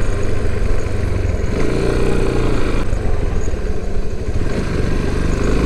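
Yamaha Serow 250's air-cooled single-cylinder four-stroke engine running under way with a steady low rumble. The engine note rises and eases off twice as the throttle changes.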